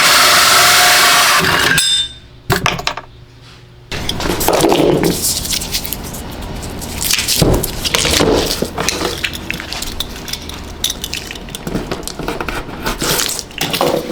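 Power drill boring out the hole for a shore power plug, which stops sharply about two seconds in. Then repeated knocks and clatter as parts and tools are handled.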